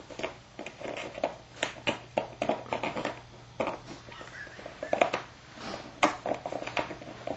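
Dog chewing a plastic water bottle, the plastic crackling in quick, irregular clicks.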